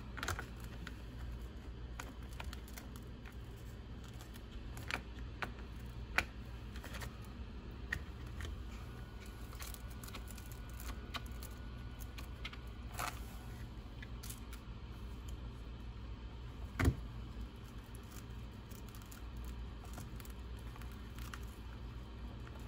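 Scattered light clicks and clinks of small drive-line parts of an RC car being handled and fitted by hand, two of them sharper about 13 and 17 seconds in, over a steady low hum.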